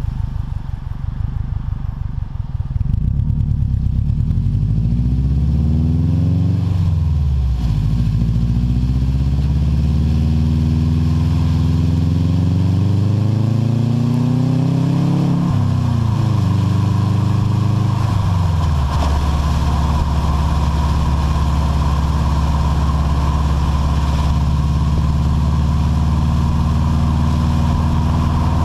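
Exhaust note of a 2005 Subaru WRX's turbocharged flat-four through a Gimmick Motorsports V3 catback exhaust, heard from under the rear of the car. The engine idles, is revved up slowly twice with the pitch climbing and then falling sharply, gets a shorter blip, and from about two-thirds of the way in it runs at a steady, unchanging speed.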